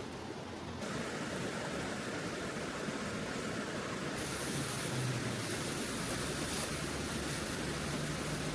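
Steady outdoor rushing noise, becoming brighter in two steps, about a second in and again about four seconds in.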